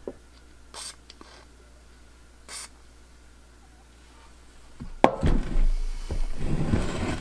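Two short hisses from an aerosol can of penetrating oil sprayed through its straw into the seized starter's bearing, to free it. About five seconds in comes a sharp knock, then the loudest part: clunks and scraping as the heavy cast-iron starter is handled and turned on the wooden bench.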